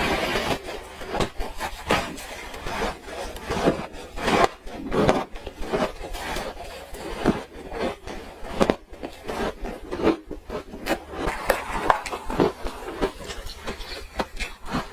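Frozen orange ice being eaten close up: a steady, irregular run of short crunches and scrapes.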